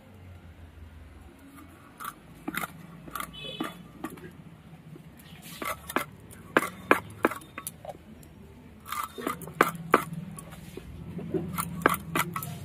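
A rohu fish being cut into pieces on the upright blade of a bonti: irregular sharp crunches and snaps as the blade cuts through the fish.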